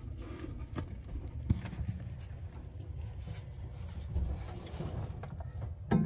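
Handling noise around a furnace blower: a low rumble with a few scattered clicks and knocks, the loudest near the end as a hand reaches the blower wheel's hub.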